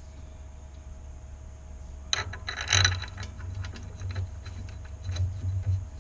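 Bolts being run into an aluminium gearbox housing with a hand tool: irregular metallic clicking in short runs, starting about two seconds in over a steady low hum.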